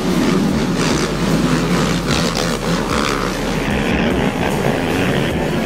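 Engines of a pack of racing quad ATVs running together: a steady, dense engine noise.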